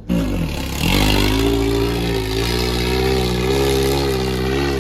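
Off-road buggy engine revving hard, straining under load as the buggy climbs a steep dirt slope. It comes in loud, its pitch rises about a second in, then holds high and wavers slightly.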